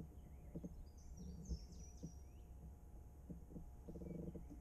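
Quiet creek-side ambience: faint high bird chirps about a second in, over a steady low rumble. A brief low call about four seconds in, with a few soft knocks scattered through.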